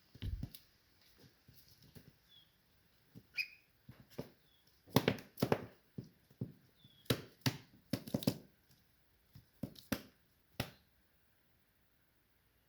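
A duckling giving a few faint, short high peeps amid a run of irregular knocks and taps, which are thickest through the middle and latter part.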